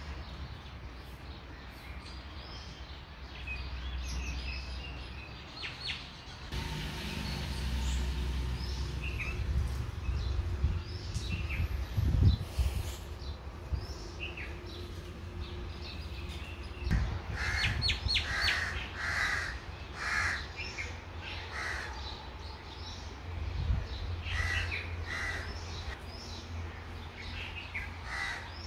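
Crows cawing in clusters of short repeated calls, busiest in the second half, with smaller birds chirping, over a steady low rumble on the microphone.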